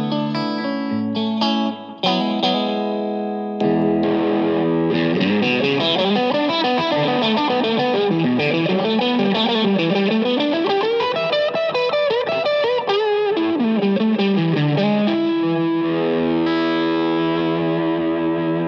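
Electric guitar, a Fender Stratocaster played through a Two-Rock amp. It opens with a few chords, then from about four seconds in plays a fast single-note lead line whose pitch winds up and down, and settles on ringing held chords near the end. The amp is picked up by a dynamic mic turned slightly off axis from the speaker, which generally gives a phasier, more honky tone with extra mid-range.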